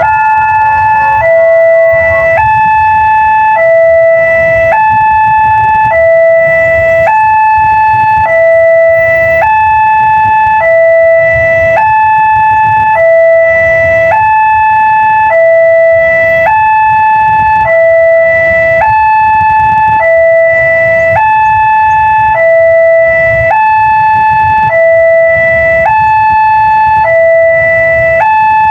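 Railway level-crossing warning siren sounding a steady two-tone hi-lo alternation, each tone held about a second and a quarter, the signal that a train is approaching the crossing.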